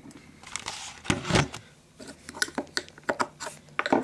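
Handling noise of a diecast metal model airliner being moved about on a wooden table: a string of sharp clicks and knocks, a heavier thump with rubbing about a second in, and loud knocks near the end.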